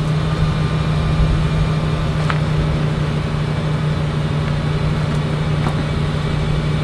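RV auto-leveling system running as the stabilizer jacks go down: a steady, even motor hum from the leveling pump.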